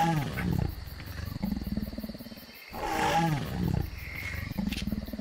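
Electronic roar of a battery-operated toy dinosaur, played twice in a row: each time a falling cry that trails into a low pulsing growl.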